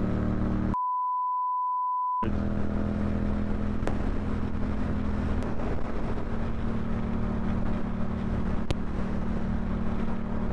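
A steady 1 kHz censor bleep about a second in, lasting about a second and a half, with all other sound cut out under it. Otherwise a motor vehicle's engine running steadily.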